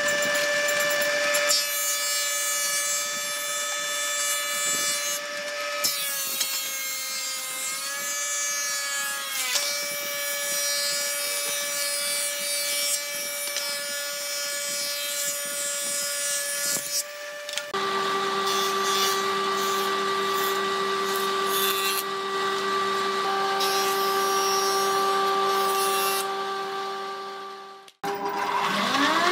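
Industrial thickness planer running with a steady motor whine; about six seconds in, its pitch sags for a few seconds under the load of a pallet board being planed, then recovers. Later the hum settles on a lower steady tone, and near the end it cuts out briefly and a woodworking machine's motor spins up with a rising whine.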